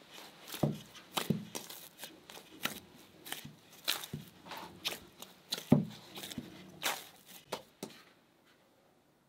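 Bread dough being kneaded by hand in a metal bowl: irregular wet slaps and squishes as the dough is pressed and folded, with a few dull thuds as it is pushed down into the bowl. The kneading stops near the end.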